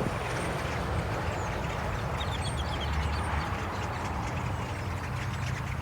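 Steady low rumble from the vehicle, with faint chattering of a large blackbird flock over it; a quick run of about six short notes comes a little over two seconds in.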